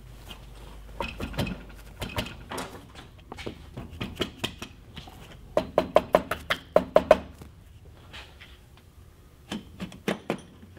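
A mallet tapping the aluminium cylinder block of a Suzuki Hayabusa engine down over its pistons and rings to seat it fully on the crankcase. A few scattered sharp knocks come first, then a quick run of about ten taps over a second and a half past the middle, and a few more near the end.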